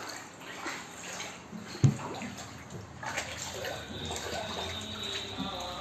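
Floodwater of rain and sewage sloshing across the floor inside a house, with a single sharp knock about two seconds in. Background music with steady tones comes in during the second half.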